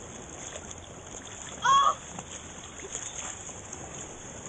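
Shallow seawater sloshing and lapping around people wading with a bodyboard. About a second and a half in, a person's voice gives one short, loud cry.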